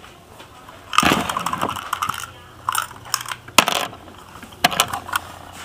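Sharp plastic clicks and knocks from toy model-railroad cars being handled, about five spread through, with a short rattling rush about a second in.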